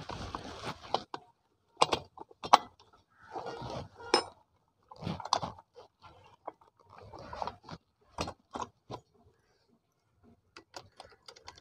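Metal clinking and clicking of a Honda CD-70 motorcycle's gearbox gears and shafts knocking against each other and the aluminium crankcase as they are worked into place by hand. It comes in short, irregular clusters, with a quiet pause a little before the end.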